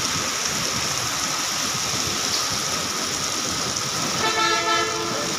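Steady hiss of heavy rain falling on a street. About four seconds in, a vehicle horn toots once, briefly.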